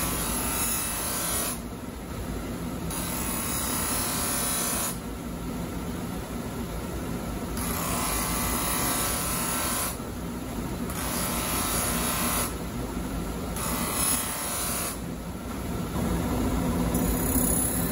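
Motor-driven polishing buff running, with the steel of a single-bevel usuba knife pressed against it in strokes: a steady machine hum under a hissing rub that starts and stops every two to three seconds as the blade meets the wheel and comes off.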